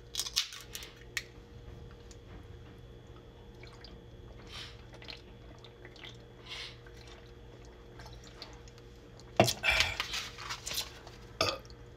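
An aluminium can of Brisk iced tea opened by its pull-tab, with a few sharp clicks in the first second, then drunk from, with faint liquid and swallowing sounds. A louder short burst of sound comes about nine and a half seconds in, and another near the end.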